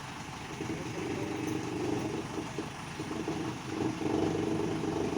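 Heavy diesel engine running steadily, getting louder about four seconds in.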